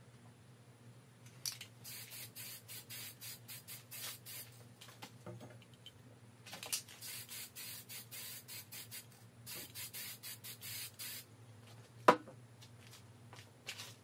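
Aerosol spray-paint can hissing in quick short bursts, about four a second, in three runs. A single sharp knock near the end is the loudest sound.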